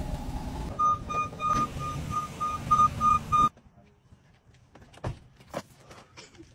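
Box truck's reversing alarm beeping about three times a second over the low running of its engine, cutting off suddenly about three and a half seconds in; after that, near-quiet with a few faint taps.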